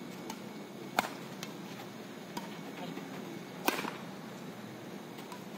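Badminton rackets striking a shuttlecock during a rally: two sharp hits about two and a half seconds apart, with fainter taps between them.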